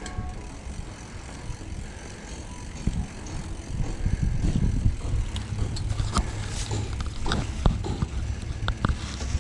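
Low wind and road rumble of a beach cruiser bicycle ride, growing louder from about four seconds in, with scattered sharp clicks and rattles in the second half.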